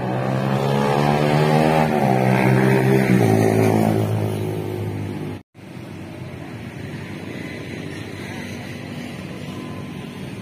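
A motor vehicle's engine running, loudest about three seconds in, its pitch shifting in steps. After a brief dropout just past halfway, only fainter steady traffic noise is left.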